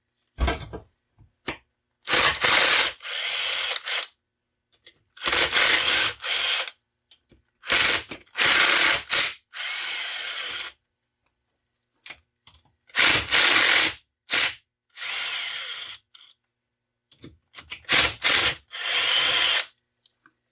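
A socket tool spinning bolts out of a 42RE automatic transmission's rear (overdrive) section, in a series of short bursts about a second long each, with short pauses between them.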